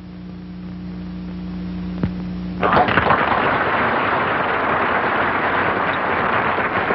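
Steady electrical mains hum on an old broadcast soundtrack, with a single click. Just under three seconds in, a loud, dense rushing noise starts suddenly and carries on.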